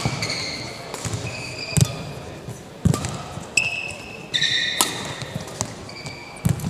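Badminton rally: rackets striking the shuttlecock about once a second, with short high squeaks of shoes on the court mat between the shots.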